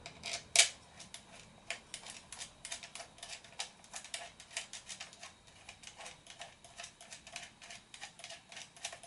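Rapid, fairly regular clicking, several clicks a second, from hand work on the drone's plastic landing-gear mount as it is screwed to the body, with one louder click about half a second in.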